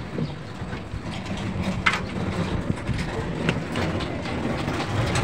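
Clicks and knocks of a laminating machine's blue sheet-metal casing and parts being handled, over a steady low rumble.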